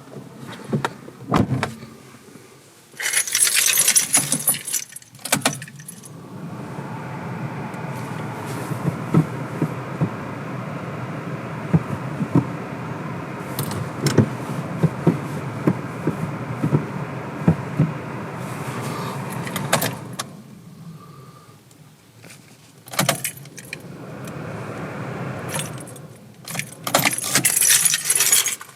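Car keys jangling, twice: a few seconds in and again near the end. In between comes a steady mechanical hum with small clicks that stops about two-thirds of the way through.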